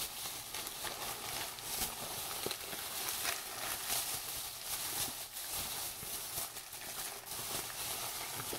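Shopping bag and packaging rustling and crinkling steadily as items are pulled out of it, with scattered small knocks and taps of the items being handled.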